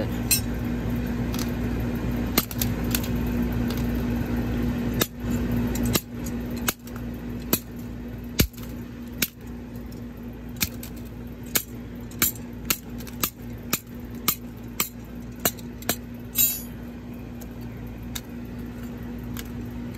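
A metal bar striking a plastic flip phone on concrete again and again, a string of sharp cracks and clinks. The blows are spaced out at first and come about two a second in the middle, as the phone breaks apart and its screen shatters.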